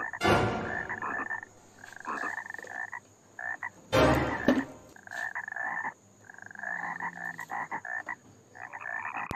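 Frogs croaking in repeated calls of about a second each, broken by two loud sudden noises, one just after the start and one about four seconds in.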